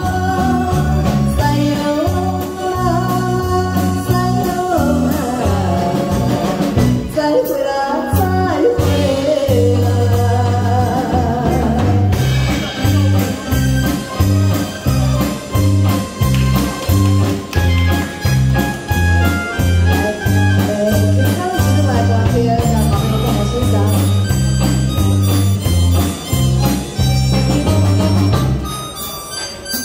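A woman singing a pop song into a microphone over amplified band accompaniment. After about eight seconds the voice drops out for an instrumental break with a steady, regular bass beat.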